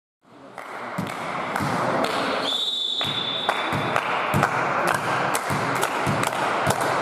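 Balls bouncing and thudding on a sports-hall floor at irregular intervals over a steady murmur of hall noise, fading in from silence at the start. A high whistle-like tone is held for about a second and a half in the middle.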